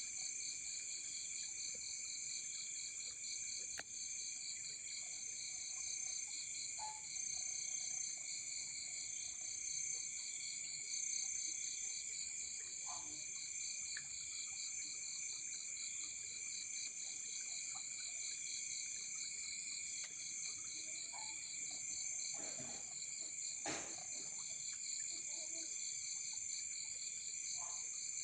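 Insect chorus of crickets: several steady high-pitched trilling bands, one of them pulsing rapidly, with a few faint short knocks and calls lower down.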